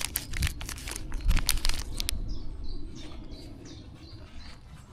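Plastic candy bag crinkling and crackling as it is handled and opened, for about the first two seconds, followed by faint short bird chirps.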